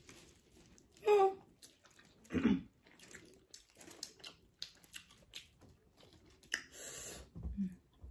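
Close-up chewing of saucy chicken wings: wet mouth clicks and lip smacks, with two louder short mouth sounds about a second and two and a half seconds in, and a brief hiss near the end.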